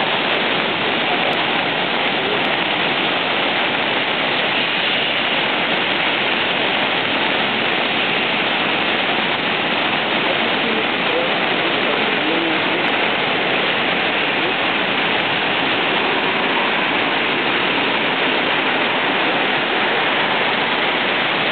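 A river in flood after monsoon rains, its brown floodwater rushing and churning through standing waves in a loud, steady rush.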